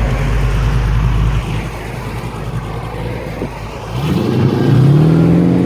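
A 383 cubic-inch V8 running with a deep steady rumble that drops back about a second and a half in, then accelerating over the last second or two, its pitch rising steadily.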